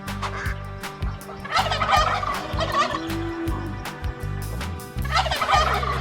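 Turkey gobbling: two rapid, warbling gobbles, the first about a second and a half in and the second about five seconds in.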